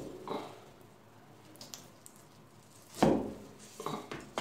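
A large broad-bladed knife chopping down through a slab of date paste topped with whole nuts in a metal tray. One light chop comes at the start, a hard chop about three seconds in, then a couple of lighter ones near the end.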